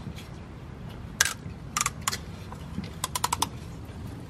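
Sharp plastic clicks from a syringe of gel transmission additive being pressed into a gearbox fill hole: a single click, two more, then a quick run of about six.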